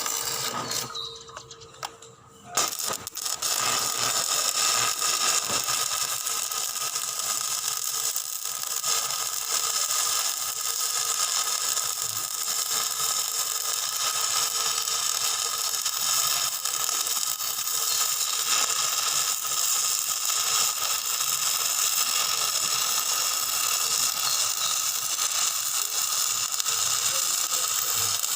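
Electric arc welding: a dense, steady crackle of the arc that strikes up about two and a half seconds in and keeps burning.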